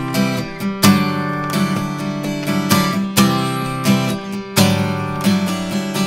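Acoustic guitar strumming chords, recorded through a 1073-style microphone preamp. Several hard strokes, the strongest about a second in and again around three and four and a half seconds, with the chords left to ring between them.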